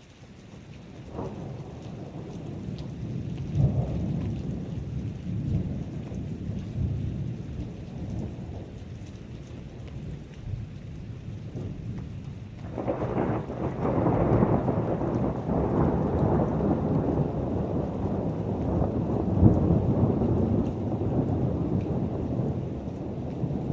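Thunder rumbling over steady heavy rain: a low rolling rumble builds in at the start, and a second, louder peal breaks in about halfway through and rolls on.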